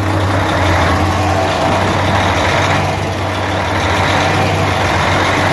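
Mercedes-Benz Actros truck's diesel engine running, a loud, steady low drone.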